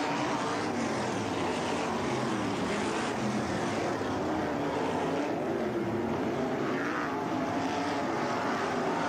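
Winged sprint car engines at racing speed on a dirt oval: a continuous loud engine sound whose pitch keeps rising and falling as the cars run through the turns and down the straight.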